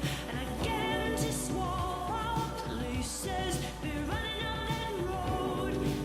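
Background pop music with a sung vocal line over a steady beat.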